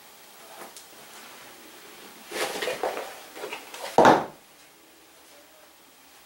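Lace-up shoes being pulled off a person's feet: a run of rustling and scuffing, then one heavy thump about four seconds in as a shoe is set down on the floor.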